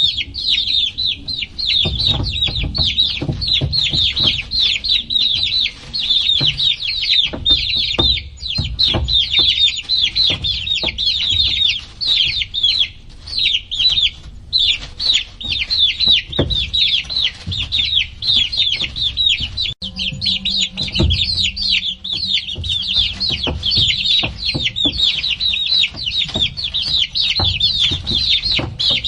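A brood of baby chicks peeping nonstop: many overlapping, high-pitched peeps, each dropping in pitch, with soft low thuds underneath. A faint low hum comes in about two-thirds of the way through.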